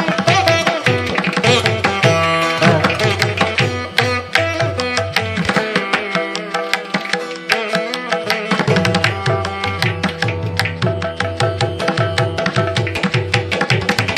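Background instrumental music in an Indian classical style, with quick hand-drum strokes over plucked-string melody. The low drum notes drop out for a few seconds in the middle, then return.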